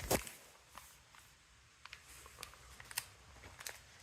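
Sparse, faint crinkles and light clicks of plastic-wrapped snack packaging being handled, with one sharper click at the start.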